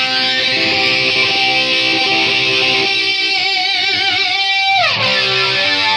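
Background rock music led by electric guitar. A held note wavers, then dives sharply in pitch about five seconds in.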